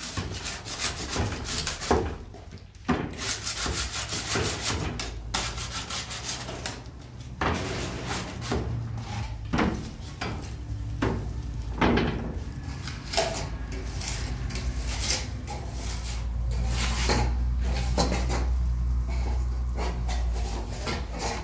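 Plastering trowel scraping and smoothing wet mud plaster on a wall, in many short, irregular rubbing strokes.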